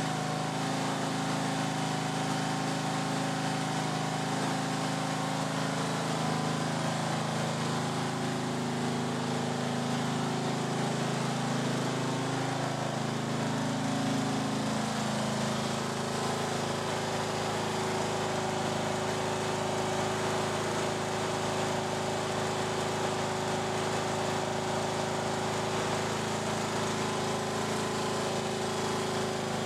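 Craftsman riding mower engine running. Its speed wavers up and down through the first half, then settles to a steady run.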